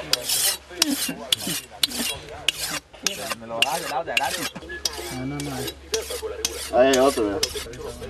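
A steel machete blade being sharpened by hand on a wet stone: quick scraping strokes, about two to three a second.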